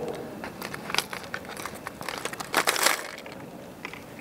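Hard plastic wobbler lures clicking and rattling against each other and the plastic compartments of a tackle box as a hand rummages through them, with a denser, louder clatter of clicks near the three-second mark.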